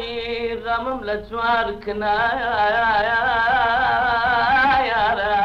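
Kurdish song in the Middle Eastern style: a melodic line in short broken phrases, then a long held note with heavy vibrato from about two seconds in. It has the narrow, dull sound of an old recording.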